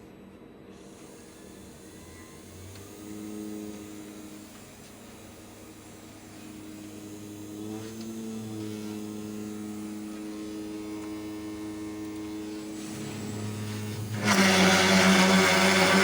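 CNC router's spindle running with a steady hum, then about fourteen seconds in the bit cuts into the edge of a panel with a loud grinding noise while boring holes in the end face.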